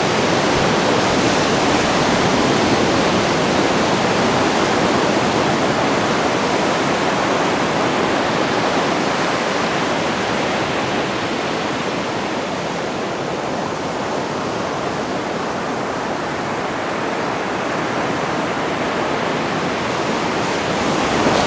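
Steady rushing of ocean surf breaking on a beach, easing slightly in the middle and swelling again near the end.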